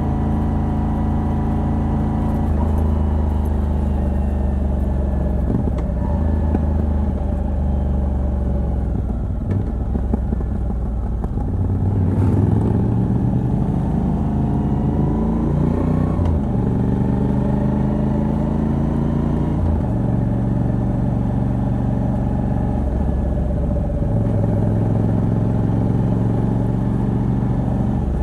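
Moto Guzzi V85TT's air-cooled transverse V-twin running through a stock exhaust with a decat pipe, heard from the rider's seat. The engine holds steady revs with small changes every few seconds, then revs rise under acceleration a little before the middle.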